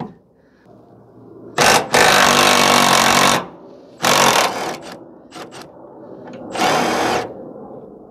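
Power tool running in four bursts, one short, one about a second and a half long, then two shorter ones, with a motor whine, as it spins the upper shock-absorber mounting nut and bolt loose.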